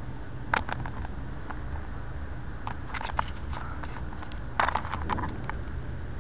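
Clicks and scrapes of the camera and fishing gear being handled, in short clusters about half a second, three seconds and four and a half seconds in, over a steady low rumble.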